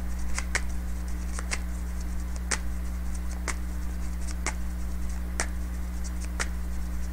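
Sharp ticks about once a second, like a ticking clock, over a steady low electrical hum.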